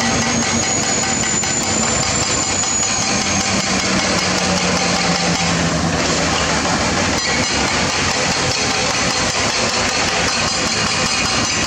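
Self-loader truck's diesel engine running steadily under load as the truck, carrying an excavator, creeps slowly uphill.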